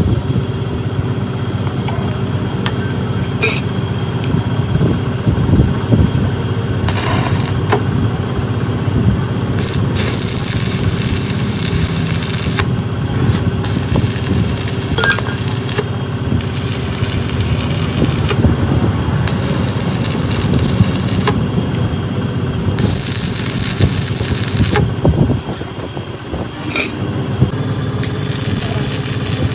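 A machine running steadily with a low drone, joined every few seconds by bursts of hiss that switch on and off, with a few sharp clicks.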